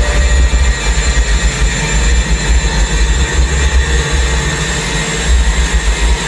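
Loud, dense electronic drone with a heavy low rumble and a few thin steady high tones: the performer's muscle sounds and blood flow, picked up by the Xth Sense biosensor, amplified and digitally processed, with his muscles under strain as he drags weights.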